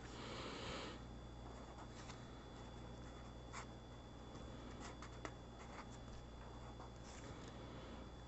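Faint scratching and light tapping of a pen writing numbers on notebook paper: a short stretch of scratching in the first second, then scattered small strokes and ticks, over a faint steady hum.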